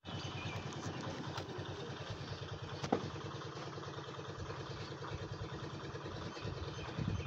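A small engine running steadily at an even pace, with one sharp knock about three seconds in.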